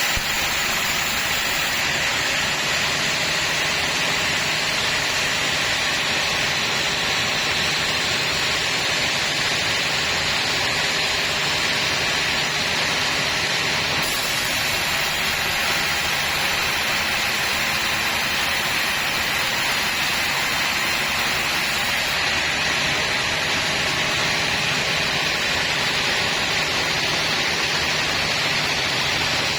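Sawmill saw running steadily through wood, a loud, even mechanical noise with no pauses.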